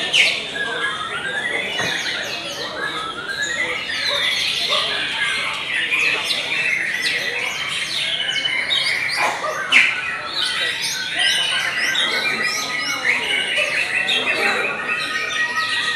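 White-rumped shamas singing at once: a dense, unbroken tangle of chirps, whistles and quick rising and falling notes, with a single sharp click a little past halfway.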